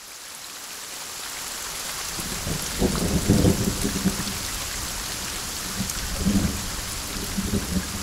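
Heavy rain falling, pattering on the ground and tent, fading in over the first couple of seconds, with low rumbles swelling about two seconds in and again near the end.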